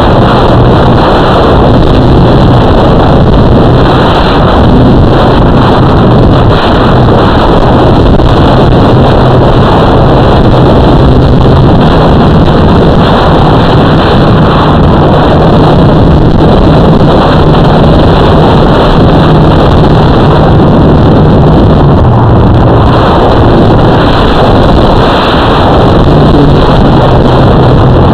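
Loud, steady rush of wind and propellers with a low motor hum, heard through an FPV drone's onboard microphone. The hum steps up in pitch for several seconds in the middle, then drops back.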